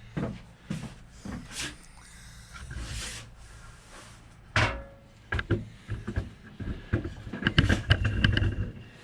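Handling noise from hand work on a steering rack: the rubber boot and its metal parts being worked into place, with scattered knocks and clicks, one sharper clank about halfway, and a quick run of clattering with a faint metallic ring near the end.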